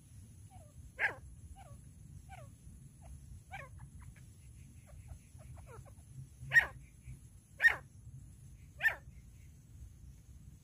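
Female grey francolin calling: sharp, short calls, one loud about a second in and three more close together from about six and a half seconds in, with fainter calls between them.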